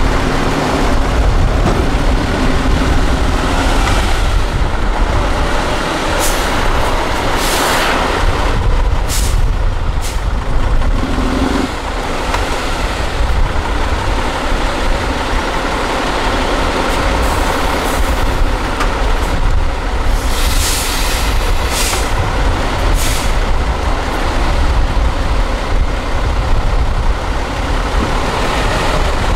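Tatra 8x8 trial truck's diesel engine running under load as the truck crawls through a steep ditch. Several short sharp air hisses from its air brakes cut in, a cluster about a quarter of the way in and another about two-thirds in.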